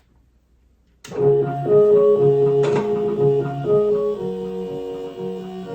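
Electric carousel music box switching on and playing a tune in sustained, organ-like notes, starting suddenly about a second in.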